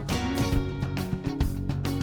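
Upbeat closing music with a steady beat and guitar.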